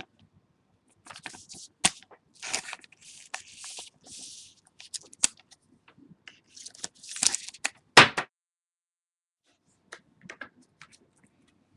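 Trading cards and plastic card sleeves being handled on a table: intermittent scraping, rustling and clicks, with a sharp knock about eight seconds in and only faint ticks after that.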